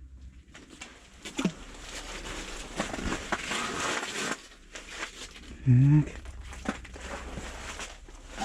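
Rustling and crinkling handling noise with a few sharp clicks, lasting about four seconds and then fading to softer movement.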